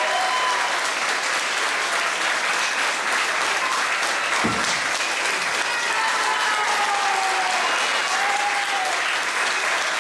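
Audience applauding steadily at the end of a dance, with a single dull thump about halfway through.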